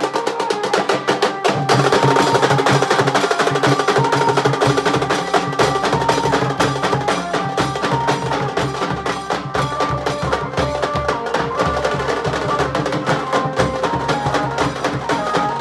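Nashik dhol ensemble drumming a fast, dense rhythm, with a melody of held, stepping notes over it. The deep drum strokes grow heavier about a third of the way in.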